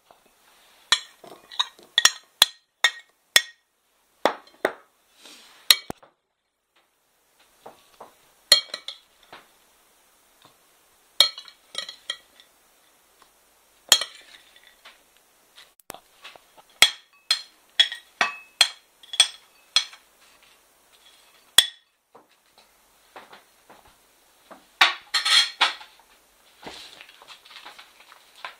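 Metal spoon clinking and scraping against a glass salad bowl and other bowls as salad is mixed and dished out: irregular sharp clinks with a ringing tone, with a quick run of clinks about 25 seconds in.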